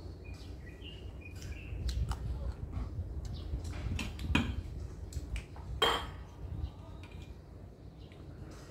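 Eating sounds up close: chewing and lip smacks, with a few sharp clicks, the loudest about four and six seconds in.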